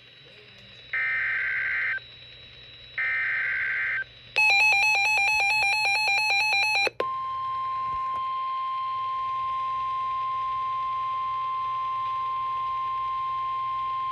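Emergency Alert System tornado-warning tones. First come two one-second bursts of buzzing SAME header data, a second apart. Then about two and a half seconds of a fast warbling alert tone, then a steady single-pitch warning tone held to the end.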